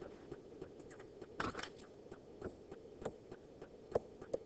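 Faint taps and light scratches of a pen stylus on a screen while writing digital ink, with a few sharper taps near the end.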